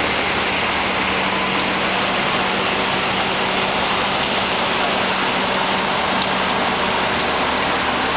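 Heavy rain pouring down steadily, with a low steady hum underneath.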